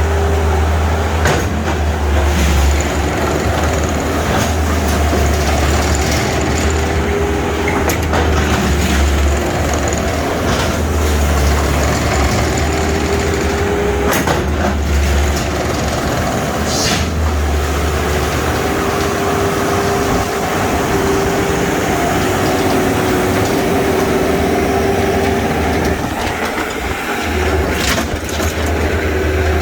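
Engine of the machine carrying the snow pusher, idling steadily with a low rumble, with a few sharp clicks or knocks now and then.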